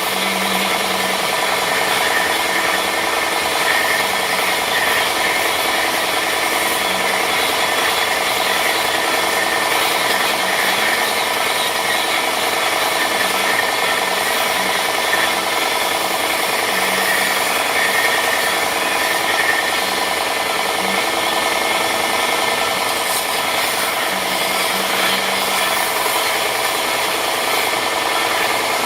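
Electric sander running steadily as it sands the edges of a wooden paddle, a continuous motor hum with the rasp of abrasive rubbing on wood.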